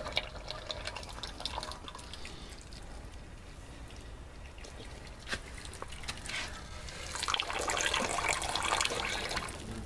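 Old gear oil draining in a thin stream from the open drain plug of a Lada Priora's manual gearbox and splashing into a metal basin below. It grows louder from about seven seconds in.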